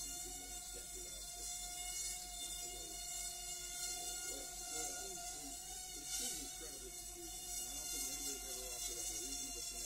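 Micro quadcopter's tiny brushed motors and propellers buzzing in flight: a thin, steady, insect-like whine that wavers slightly in pitch as the throttle changes.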